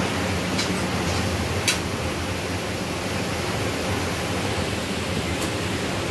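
Steady rushing noise with a low hum under it, like a running fan, broken by a few brief sharp clicks: one about half a second in, one near two seconds, and one near the end.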